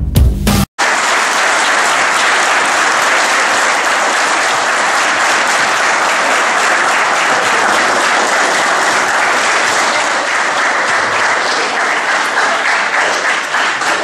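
A large audience in a hall applauding steadily, a welcoming round for the speakers. The last moment of an intro music sting cuts off abruptly under a second in.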